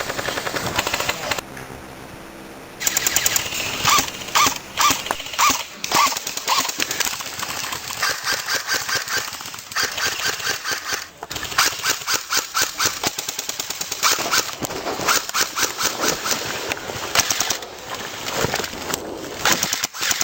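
Airsoft guns firing long rapid bursts of BBs, with several strings of quick sharp shots overlapping. The firing starts in earnest about three seconds in, after a brief lull.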